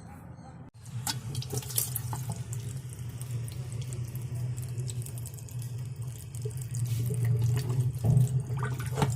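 Water running and splashing from a leaking washing machine, over a steady low hum. It starts abruptly under a second in.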